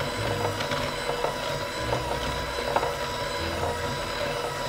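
Electric hand mixer running steadily on low speed, its beaters churning cold, crumbly vegan butter and coconut sugar in a ceramic bowl, with a scatter of clicks and knocks from the beaters and clumps against the bowl.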